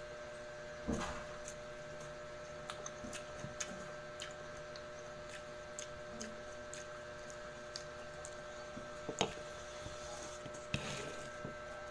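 Ripe jackfruit being pulled apart by hand and eaten: many small, sticky clicks and smacks, a few louder ones about a second in and near the end, over a steady electrical hum.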